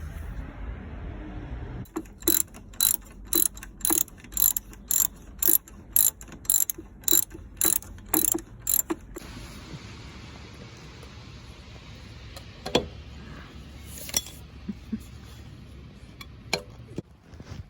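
Regular metallic clicking, about two clicks a second for some seven seconds, then a few scattered knocks.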